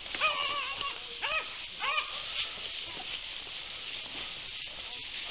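Hunting hounds baying in the brush as they work a rabbit's scent: three short bays in the first two seconds and a fainter one near the end, over a steady high hiss.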